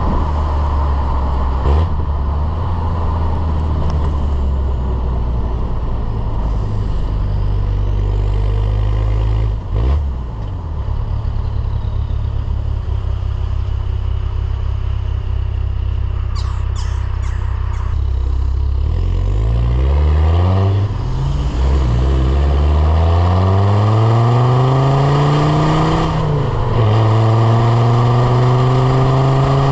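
Land Rover Defender Td5's five-cylinder turbodiesel engine running at a steady pitch, then accelerating with a rising pitch from about twenty seconds in. About six seconds later a gear change drops the pitch, and it climbs again.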